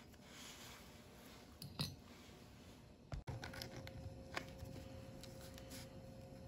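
Faint handling of tiny plastic model parts: a few light clicks and taps as the small pieces are picked up, touched together and set down on a felt mat, the sharpest click a little under two seconds in.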